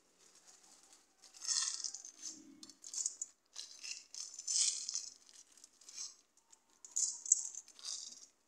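Dry odong noodle sticks rattling and rustling against each other and the pan in irregular bursts as they are pushed down into the broth.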